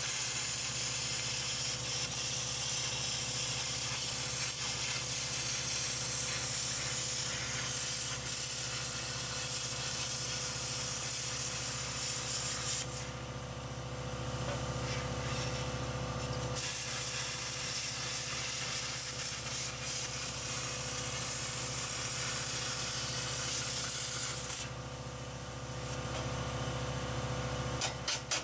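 Angle grinder cutting through sheet steel: a steady, loud grinding hiss over the motor's constant whine. The cut eases off for about three seconds around the middle, resumes, then drops to the lighter sound of the grinder running unloaded near the end.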